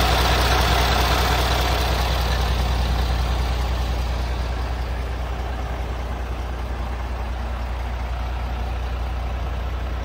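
Scania G400's 13-litre inline-six diesel idling steadily, fading somewhat as it is heard from further off, from the open engine bay to the front of the truck.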